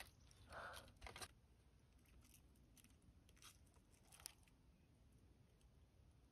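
Near silence, with a few faint rustles and clicks in the first second and a half and a few fainter ticks after that.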